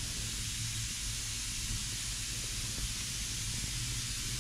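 Steady even hiss with a low hum beneath it, with no distinct event: background room or equipment noise.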